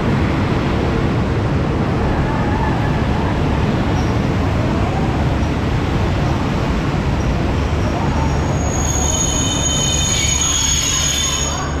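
A passenger train rumbling along the rails, with a high metallic squeal of several tones for about three seconds near the end.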